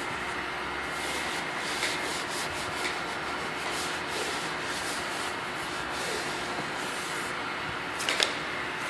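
Knit-gloved hand rubbing Xpel tint film down onto a car tail light lens in repeated scratchy strokes, over a steady background hiss. A sharp click comes near the end.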